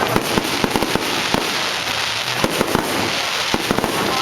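Fireworks display: rapid bangs from aerial shells, several a second, over a continuous crackle.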